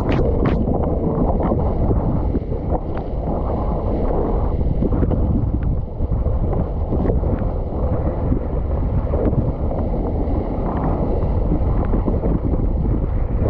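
Wind buffeting the microphone of a camera on a windsurf rig, over water rushing past the moving board, with a few sharp ticks.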